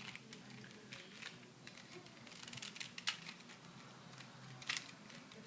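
Rubik's cube being turned by hand: a faint, irregular run of plastic clicks and rattles as the layers twist, with two sharper clicks about three seconds in and near the end.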